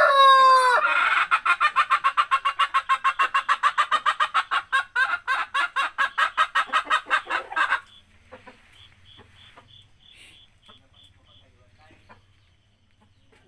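The end of a rooster's crow, falling in pitch, then a chicken clucking in a rapid, even series of about five or six clucks a second that stops suddenly a little past halfway. Faint, regular high chirping follows.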